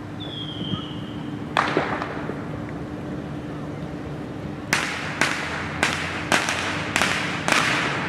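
Fireworks: a high whistle lasting about a second and a half that ends in a sharp bang, then a run of six sharp bangs about half a second apart near the end.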